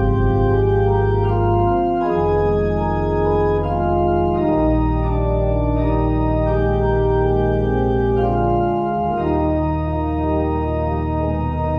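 Organ playing the postlude: slow, sustained chords over a held bass note that changes every few seconds.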